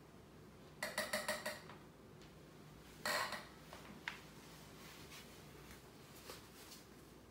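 Light clinking clatter, like small hard objects knocked together: a quick run of several clinks about a second in, a shorter clatter near the middle, then a single click, over quiet room tone.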